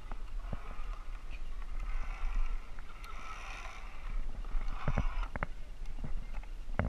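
Climbing-harness carabiners and safety lanyards clicking and knocking against a wooden pole and platform, with a few sharp clicks about five seconds in and again near the end, over a steady low rumble.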